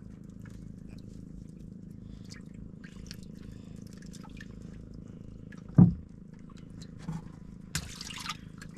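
A steady low rumble with one loud, sharp thump about six seconds in, and a short splashy hiss near the end.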